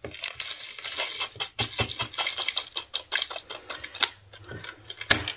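Small metal jump rings and a clear plastic compartment storage box clicking and rattling as they are handled: a busy run of light clicks for the first three seconds or so, sparser near the end.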